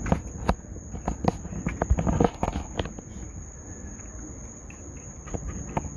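A series of sharp clicks and knocks, densest in the first three seconds, from hands working the wires and connectors at the back of a boat's tachometer, over a steady high-pitched whine.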